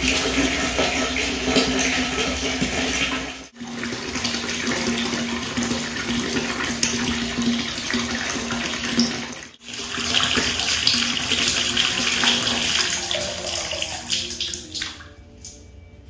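Tap water pouring in a steady stream from a plastic faucet into a nearly full plastic bucket, splashing on the water and on a plastic dipper floating in it. The sound cuts out suddenly and briefly twice, then thins to a trickle and dies away near the end as the tap is turned off.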